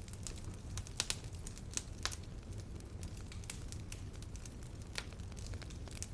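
Wood fire crackling in a fireplace: irregular sharp pops and snaps over a steady low rumble of the flames, the loudest pair of pops about a second in.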